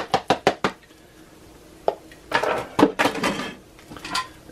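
A plastic container tapped about five times in quick succession to shake out shredded cheese, then single knocks and a second or so of kitchenware clatter.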